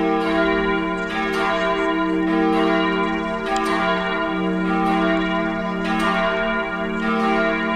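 Church bells pealing, several bells striking in turn about once a second, their tones ringing on and overlapping.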